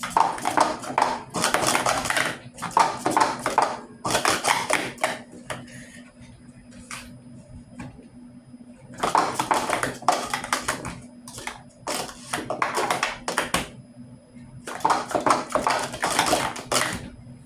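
Rapid clicking and clattering of small hard objects being handled fast, in six bursts of one to two and a half seconds each, with a longer lull about five seconds in.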